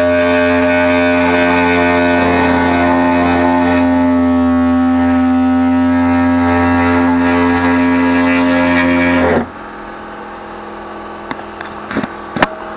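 Pneumatic air saw running and cutting through a dash panel: a loud, steady pitched whine over a hiss that stops abruptly about nine and a half seconds in. A few small clicks and knocks follow near the end.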